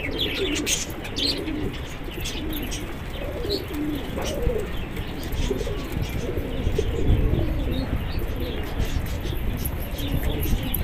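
A flock of domestic pigeons cooing again and again, with higher chirps near the start. A low rumble runs underneath in the second half.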